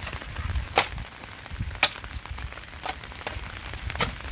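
Four sharp knocks about a second apart, over a low rumble.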